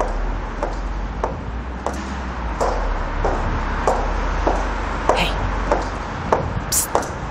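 Footsteps on a hard floor at a steady walking pace, about one and a half steps a second, over a steady low hum. A few sharp high clicks come near the end.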